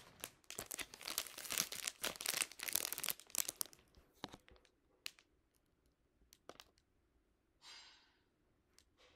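Clear plastic bag around a costume mask crinkling and crackling as it is handled. The crackle is dense for the first three and a half seconds, then thins to scattered crackles, with a short rustle near the end.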